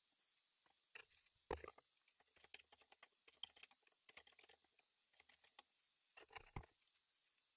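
Hand tools and wood being handled on a workbench: a run of light clicks and knocks, with louder knocks about a second and a half in and again near the end.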